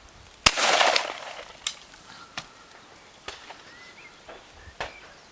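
A single loud shotgun shot at a clay target about half a second in, with a short echoing tail. It is followed by several much fainter clicks.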